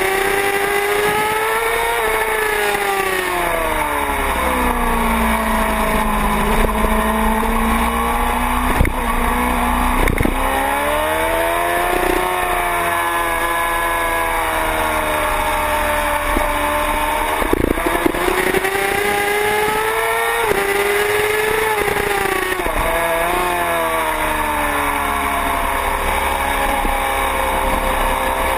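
Sport motorcycle engine at track pace, its revs climbing under acceleration and dropping off as the bike slows for corners, again and again. Wind rush runs under the engine note.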